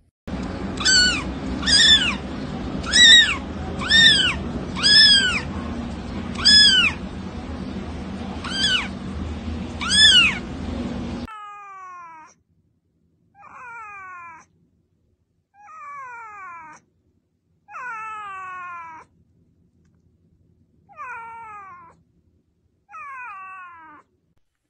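Cats meowing. First come seven short meows that rise and fall in pitch over a steady background hiss. Then, from about eleven seconds in, a white cat gives six drawn-out meows, each falling in pitch.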